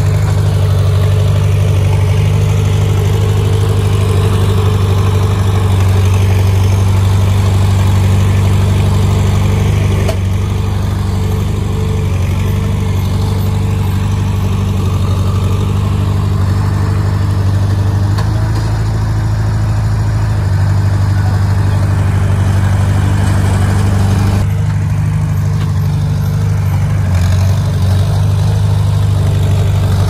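Komatsu D20 small crawler bulldozer's diesel engine running steadily as it pushes and spreads a load of dirt.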